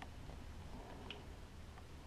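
Faint light click of a Sig P938 pistol's small metal parts being handled during field stripping, about a second in, with a fainter tick near the end over a low steady hum.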